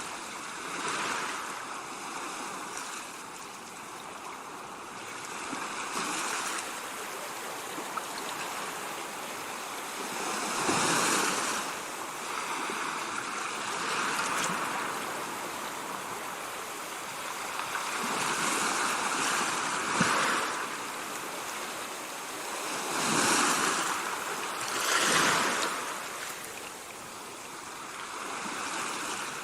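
Ocean surf: waves breaking and washing in, the rush swelling and falling back every few seconds, with the strongest surges in the second half.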